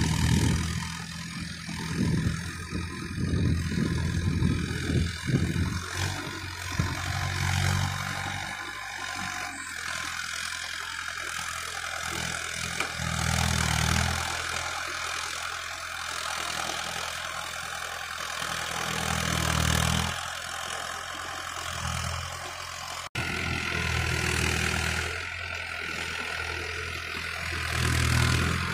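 Mahindra Arjun 555 DI Ultra-1 tractor's diesel engine running under load while pulling a cultivator through wet soil, held at about 1600 rpm. Its low engine note swells and fades every few seconds over a steady hiss.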